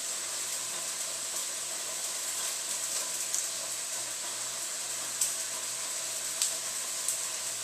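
Steady sizzling hiss of onions frying in a pan, with a few faint sharp clicks in the second half.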